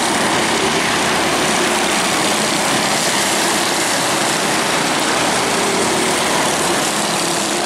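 Mini Sprint race cars' engines running at racing speed as the pack laps the oval: a steady engine drone that holds at one level throughout, with faint engine notes in it.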